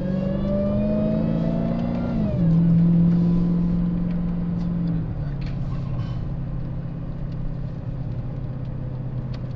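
Dodge Challenger SRT Hellcat's supercharged 6.2-litre V8, heard from inside the cabin, pulling up through the revs with a faint high supercharger whine rising with it. The pitch drops at a gear change about two seconds in. It drops again about five seconds in and settles to a steady cruise.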